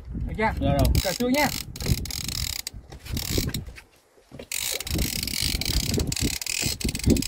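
Fishing reel being wound by hand, its gears clicking and whirring as line comes in; the sound drops out briefly about four seconds in.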